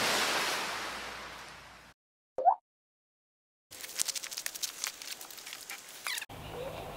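A rushing, splash-like sound effect that fades away over about two seconds, then a short squeak, a second of silence, and a rapid clatter of clicks and ticks from sped-up footage that stops abruptly near the end.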